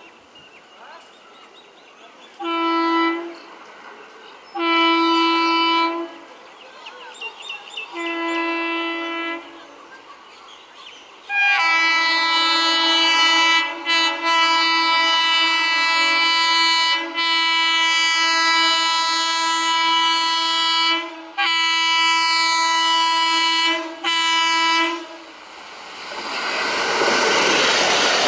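WAP-4 electric locomotive's horn sounding as the train approaches: three short blasts, then one long blast held for about fourteen seconds with a few brief breaks. Near the end, the rising rush and rattle of the train's wheels on the track takes over as the train arrives.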